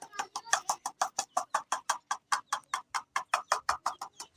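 A metal utensil tapped rapidly and evenly, about seven sharp taps a second, to call chicks to their feed.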